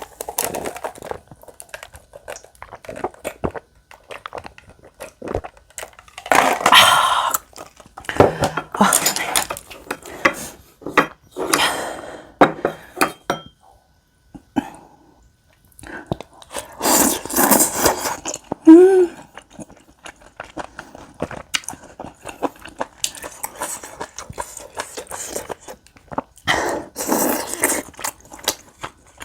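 Close-miked eating of spicy tteokbokki and beef intestines: irregular bursts of chewing and slurping with clicks of utensils against the dish. A short pitched sound, like a hum, about two-thirds of the way through.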